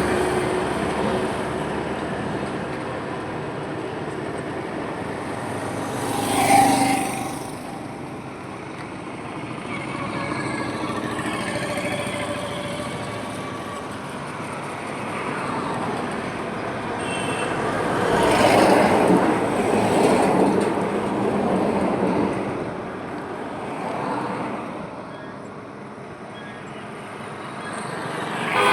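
Highway traffic: a continuous stream of vehicles passing, rising and falling as each one goes by. There are louder passes about six seconds in and again around nineteen to twenty seconds in.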